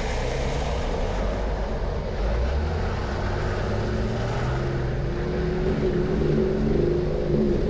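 A snorkelled 4WD's engine running steadily under load as the vehicle fords a deep, fast river, with water rushing and splashing against the body and windscreen.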